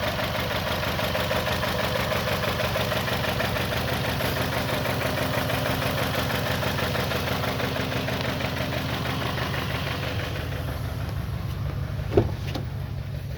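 2021 Toyota Camry engine running steadily with a misfire, caused by an internal fault in the ECM's ignition coil control circuit. A single sharp knock stands out about twelve seconds in.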